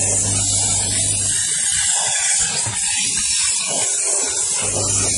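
Steam jetting from a steam car-wash machine's spray gun, a loud steady hiss. Under it runs a low hum that stops after about a second and comes back near the end.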